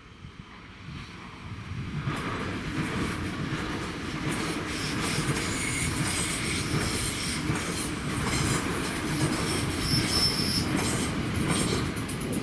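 DB Class 440 electric multiple unit passing close by, growing louder over the first two seconds. Its wheels clatter over the rail joints, with a thin high squeal from the wheels on the rails.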